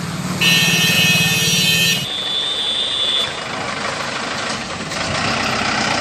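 Police van engine running, with a loud steady many-toned sound over it for about a second and a half, then a thinner high steady tone for about a second. The engine and road noise swell near the end as the van pulls out.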